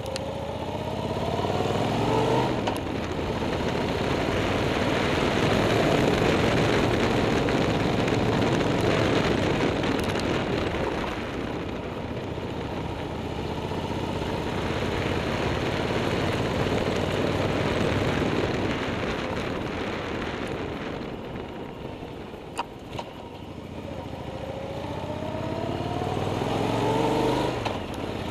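Motorcycle engine climbing a mountain road. Its pitch rises as it accelerates near the start and again near the end, and in between there is a loud steady rush of engine and wind noise at speed.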